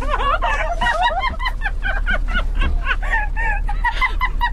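A rapid string of short, high-pitched vocal noises made right at the microphone, several a second, with no words.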